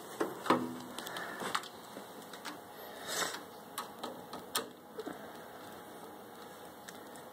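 Scattered sharp clicks and light knocks from a screwdriver and hands working on a metal PC case, removing the screws that hold the power supply in. They come irregularly for about five seconds, then die down.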